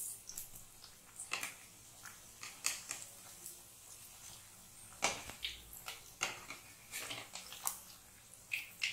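A metal slotted spoon clicking and scraping against a kadhai at scattered, irregular moments as semolina vadas are turned over in hot oil once their first side has browned, over a faint sizzle of the deep-frying.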